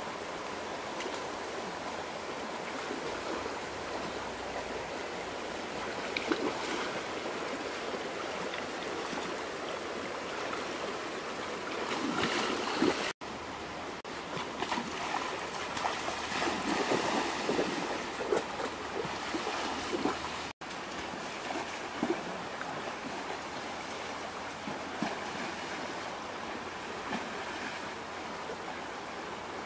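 Shallow rocky stream flowing steadily, with louder irregular splashing from wading in the water about twelve seconds in and again between about fifteen and twenty seconds in.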